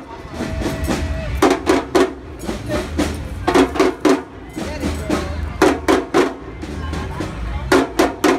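A marching drum line of large bass drums beaten with sticks, playing a steady low groove. A burst of quick, sharp cracks comes about every two seconds.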